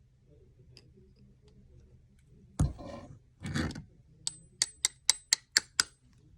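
Handling noises from threading a leather awl: a knock and a scrape, then a quick run of about seven sharp clicks, roughly four a second.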